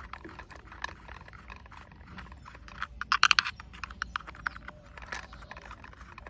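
Small screwdriver tightening screws into the plastic body of a toy auto rickshaw: scattered light clicks and ticks of metal on plastic, with a quick run of sharp, louder clicks about halfway through.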